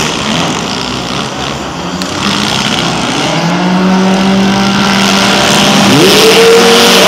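Four-cylinder demolition derby car engines running hard and revving in the arena. One engine holds a steady drone, then revs up sharply about six seconds in.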